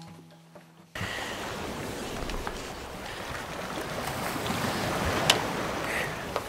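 Steady rushing wind-and-surf ambience that starts suddenly about a second in, once the last guitar notes have faded, with a sharp click about five seconds in and a smaller one near the end.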